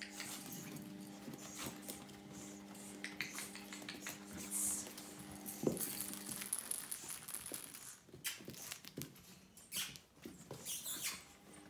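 Brussels Griffon puppy shuffling about in soft bedding: rustling fabric and light pattering and scratching. A steady low hum underneath stops about halfway through.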